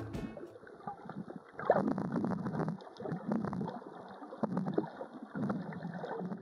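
Water splashing and gurgling in irregular rushes, then cut off abruptly at the end.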